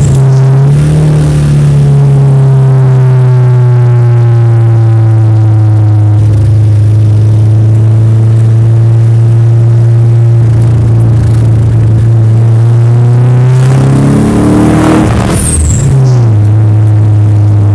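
Nissan S13's engine running loud at steady revs, its pitch dropping twice like gear changes, in a car that has a misfire.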